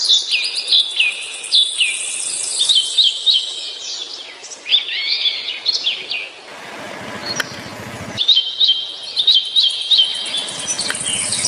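Small birds chirping in quick, repeated short calls, with a brief break about two-thirds of the way through.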